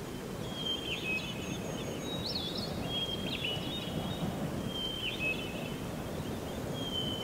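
Cartoon forest ambience: birds chirping in short calls that repeat about every second, over a steady low background hiss.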